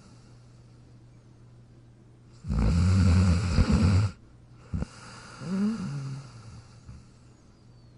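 A sleeping dog snoring: a loud, raspy snore lasting about a second and a half, followed about two seconds later by a softer, whistling breath that wavers in pitch.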